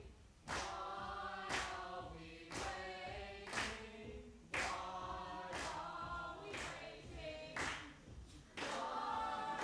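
A group of voices singing together in short chant-like phrases, a new phrase starting sharply about once a second.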